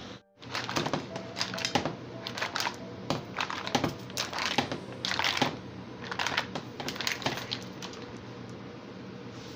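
Mussel shells clattering against each other and the frying pan as the cooked mussels are stirred and moved around, a quick irregular rattle of clicks that dies down in the last two seconds.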